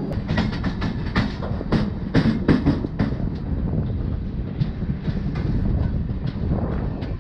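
Moving LHB passenger coach: the wheels clatter over rail joints and points in a quick series of sharp clicks for about the first three seconds, then settle into a steady running rumble with occasional lighter clicks.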